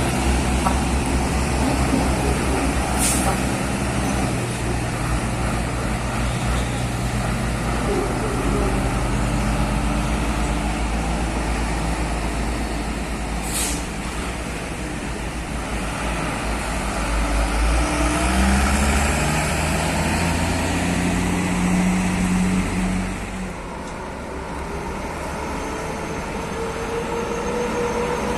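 Heavy diesel truck engine running, with a short air-brake hiss twice. The engine revs up in the last third and then drops back sharply.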